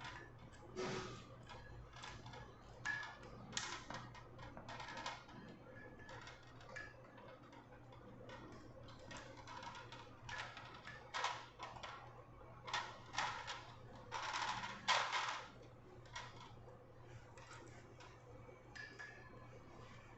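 Scattered plastic clicks and rattles of a ring light and its tripod stand being handled and fitted together, a few of them louder and longer near the middle, over a faint steady low hum.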